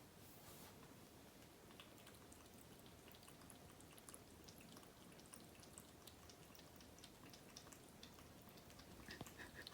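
Faint, irregular soft ticks of a cat lapping water from a bowl, drinking warily.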